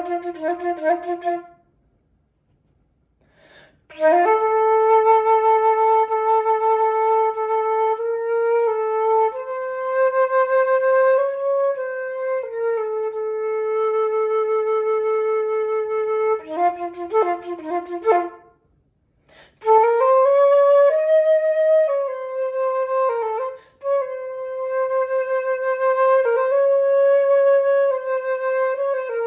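Unaccompanied flute playing slow music. A quick run of notes breaks off into a pause of about two seconds, then long held notes with slight slides between pitches. Midway comes a second quick flurry and a short break, then more long held notes.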